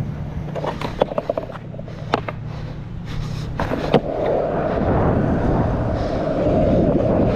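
Skateboard wheels rolling on rough asphalt. A few sharp clicks and knocks come in the first half, then a steady rolling rumble builds from about four seconds in and grows louder as the board picks up speed.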